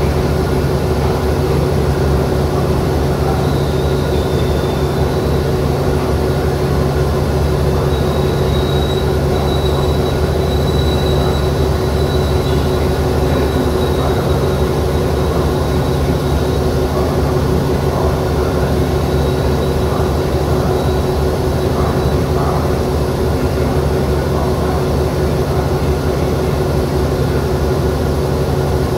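Alsthom AD24C diesel-electric locomotive standing and idling: a steady, loud engine hum with constant low tones, and a faint high whine that comes in a few seconds in and fades out after about twenty seconds.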